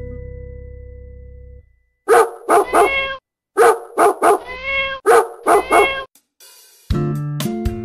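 A small dog yapping: about nine short, high barks in three quick bursts of three. Acoustic guitar music fades out at the start and comes back in near the end.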